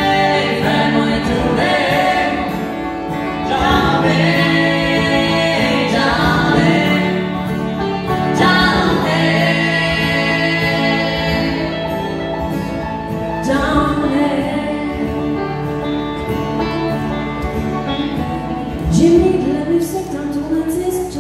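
Live country song: a woman singing with acoustic guitar and banjo, several long held notes.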